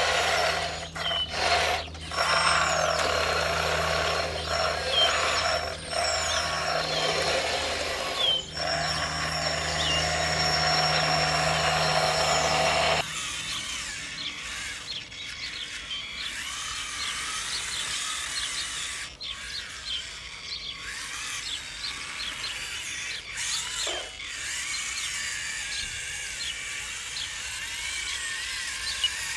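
Steady whine and hum of a small electric motor and gearing in an RC model construction machine. It cuts off abruptly about halfway through, leaving quieter sound with faint chirps, light scraping and a few knocks.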